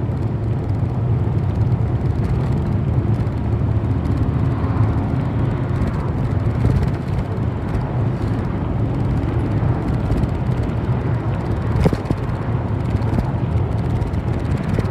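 City bus running steadily along the road, heard from inside the passenger cabin: low engine drone with road and tyre noise, and a single sharp knock about twelve seconds in.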